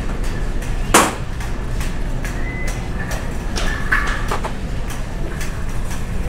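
Shopping cart rolling and rattling steadily as it is pushed, with a sharp knock about a second in.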